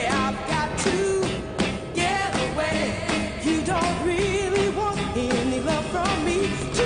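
Background song with a singing voice over a steady drum beat.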